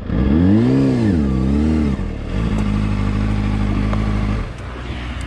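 Honda CBR600RR's inline-four engine through a Yoshimura exhaust, revved twice in quick succession, then held at a steady note before dropping back to a lower, quieter note near the end.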